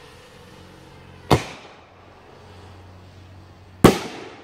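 Two sharp bangs about two and a half seconds apart, each with a short echoing tail. The first is the lift charge of an Excalibur consumer artillery shell firing from a drone-mounted mortar tube, and the second, slightly louder, is the shell bursting high overhead.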